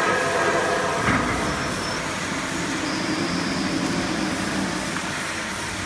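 Light keel roll forming machine running, galvanized steel strip feeding through its forming roller stations: a steady mechanical hum and rattle, with a higher whine at first and a single sharp knock about a second in.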